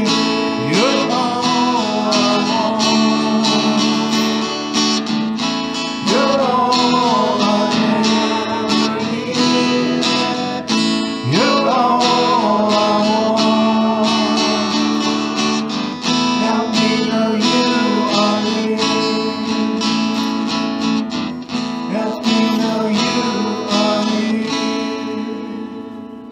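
Music: a strummed acoustic guitar playing steadily, with a wavering melody line over it, fading out near the end.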